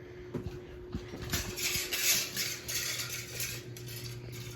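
Light clattering and clicking of small hard objects, densest between about one and three and a half seconds in, over a faint steady hum.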